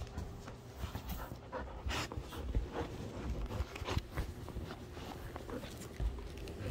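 A sheepadoodle panting close up, with irregular rustling and bumps as the dog presses against the phone.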